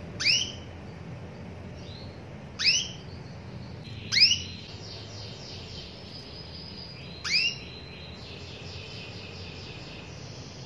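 Female canary calling for a male: four loud, upward-sweeping chirps a second and a half to three seconds apart. A faint, fast trill of repeated notes runs between them from about the middle on.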